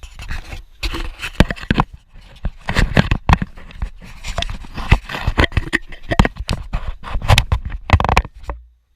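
Loud, irregular knocks and scrapes close to the microphone, many in quick succession with rustling between them, cutting off suddenly near the end.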